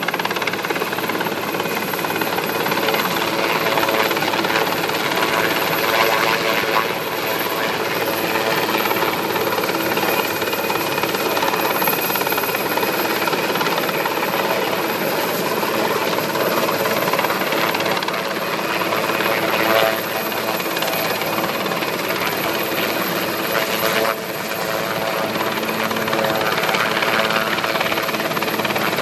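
Sikorsky S-61A-4 Nuri helicopter hovering: steady rotor noise from its twin turboshaft engines, with a steady whine running through it.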